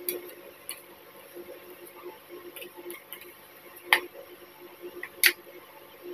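Metal spoon clinking and scraping against a small steel bowl and a plate, with scattered light taps and two sharp clinks, about four and five seconds in, the louder near the end.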